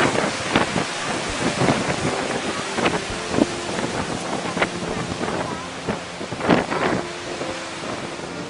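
Strong wind buffeting the microphone in sudden gusts over the steady rush of storm surf.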